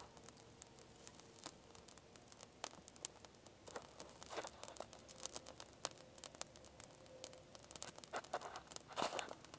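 Small twig fire crackling with frequent irregular sharp pops, together with the rustle and snap of dry twigs being handled and piled on it, loudest about four and nine seconds in.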